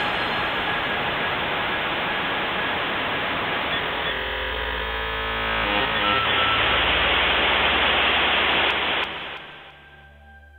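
Loud static-like noise from an electronic track, with a few stepped low tones showing through in the middle. The noise cuts off about nine seconds in, leaving faint held tones.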